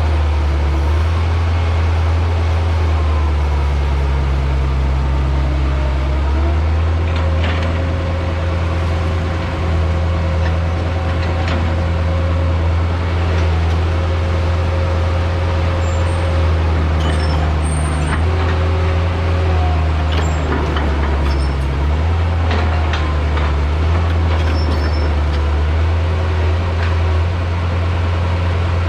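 Heavy construction machine's diesel engine running steadily, a low drone throughout, with scattered knocks and clanks from the machine at work.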